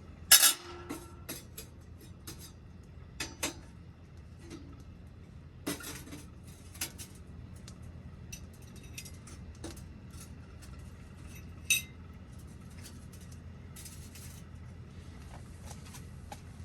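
Stainless steel wood stove being handled as the fire is relit: sharp metal clanks and clinks at irregular intervals, the loudest about half a second in and again near twelve seconds.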